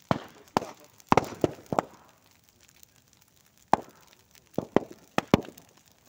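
A burning bonfire of straw and bamboo giving off about ten sharp, loud pops at irregular intervals, bunched in the first two seconds and again near the end, with a pause between.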